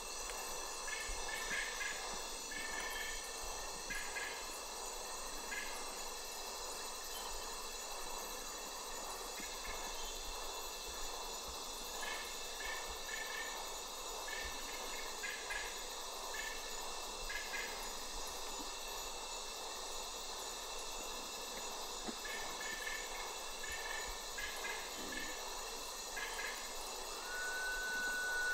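Night-time forest recording: a steady chorus of high insect tones, with clusters of short chirps recurring every second or two. Near the end a single long whistle begins, held and falling slightly in pitch, in keeping with the song of the white-winged potoo.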